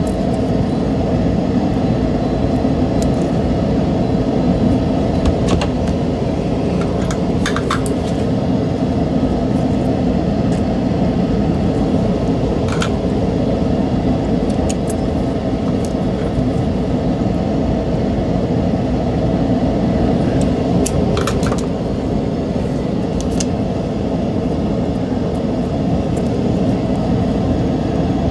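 Steady low rumbling noise, like a machine or fan running, with a scattered handful of light clicks from small plastic mouse parts and metal forceps being handled.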